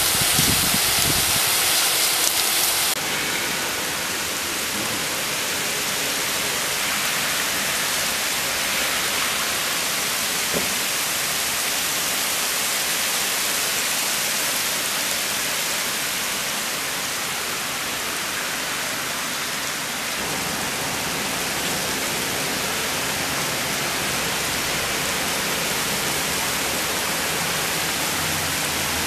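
Heavy rain pouring down onto paving and ground, a steady even hiss. It is louder and brighter for the first three seconds, then settles to a constant downpour.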